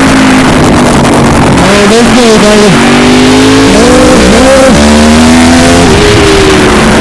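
Engine of a vehicle on track at high revs, heard from a helmet camera, loud and badly distorted. Its pitch holds steady, then swoops up and down twice, about two and four seconds in.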